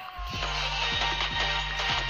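Stage show music with a steady beat and a bass line. It drops out for a moment right at the start and comes back in about a third of a second later.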